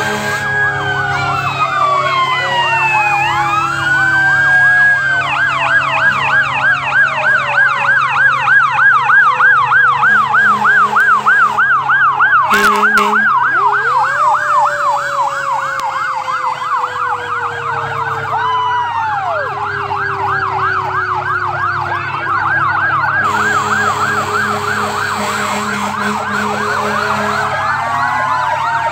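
Fire engine sirens sounding together as the trucks pass close by. Slow rising and falling wails overlap at the start and near the end, and a fast warbling yelp runs through most of the middle.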